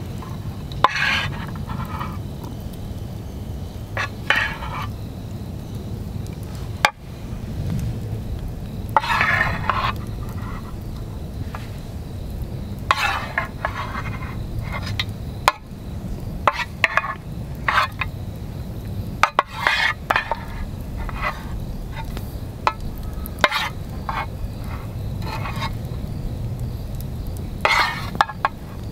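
A wooden spoon scooping salmon roe out of an aluminium tin and spooning it onto rice in a pot: repeated short, wet scraping scoops with a few sharp clicks of the spoon against the tin. A steady low rumble runs underneath.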